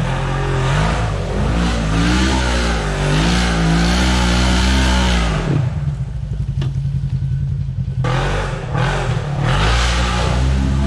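Polaris RZR XP 1000's parallel-twin engine revving hard under throttle as it climbs a steep dirt slope, its pitch rising and falling with the throttle. About halfway through the revs drop off for a couple of seconds, then it throttles up again near the end.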